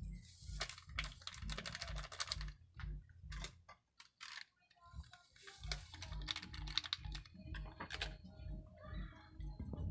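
Crinkling and tearing of plastic sachets of Birch Tree Choco powder being opened, in two runs of rapid crackles, over a soft steady beat of background music.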